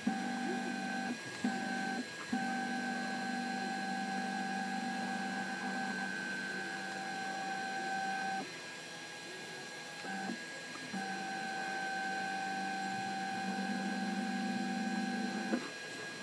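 NEMA 23 stepper motor whining with a steady pitch as it turns a direct-drive actuator shaft. It runs in bursts: two brief breaks in the first few seconds, a stop of about two seconds midway, then another run that ends shortly before the close.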